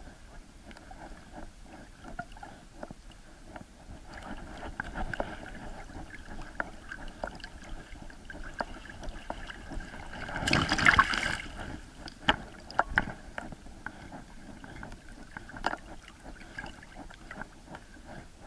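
Lake water sloshing and splashing around a swimming dog, heard from a camera on its back, with scattered knocks and a louder rush of splashing about ten seconds in.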